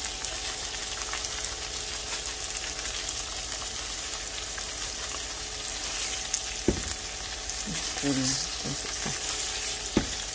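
Long beans sizzling as they sauté in a nonstick skillet, stirred with a spatula. A couple of sharp knocks, about two-thirds of the way in and again near the end.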